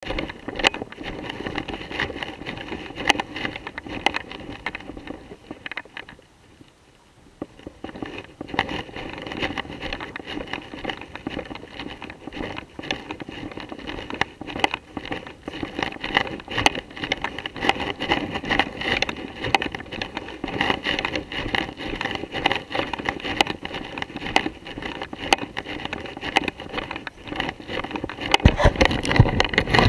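Footsteps of a walker and a dog through dry fallen leaves: a continuous crunching rustle that stops for a second or two about six seconds in. Wind rumbles on the microphone near the end.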